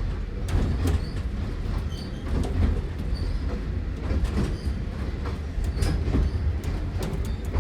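Riding aboard a small narrow-gauge steam train: the carriage gives a steady low rumble, with frequent irregular clicks and knocks from the wheels running over the track and a few faint short high squeaks.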